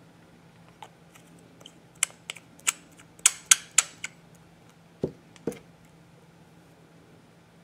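A run of six sharp clicks over about two seconds, followed by two duller knocks: small tools and a glue bottle being handled at a fly-tying vise.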